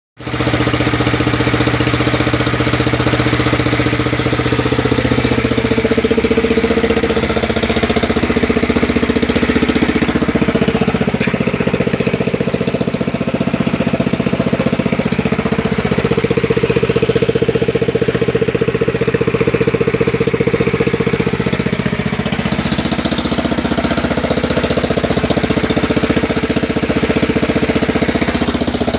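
The updated 16 hp engine of a John Deere 100 lawn tractor running steadily, with a loud, even firing beat and a steady pitch that shifts slightly a few seconds in.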